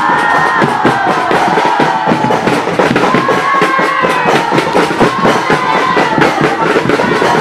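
Crowd of student supporters singing and chanting together over a quick, steady beat of hand percussion.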